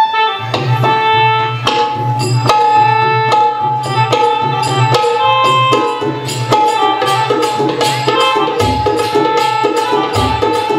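Live folk accompaniment: hand drums played in a quick, even rhythm with deep bass strokes, over a steady held melodic tone. The deep bass strokes come out strongest in the last few seconds.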